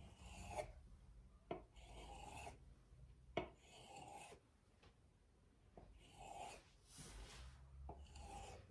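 Kitchen knife drawn through a thin sheet of rolled cracker dough onto a countertop: a series of faint scraping strokes, with a few sharp taps of the blade on the counter.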